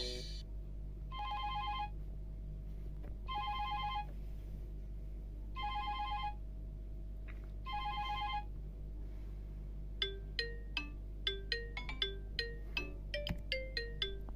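Alcatel OneTouch 2005D phone tones played through a Nokia Asha 300's loudspeaker. First a fast warbling two-note trill rings four times, about two seconds apart. Then, from about ten seconds in, a melody of short bright notes at about three a second begins, over a steady low hum.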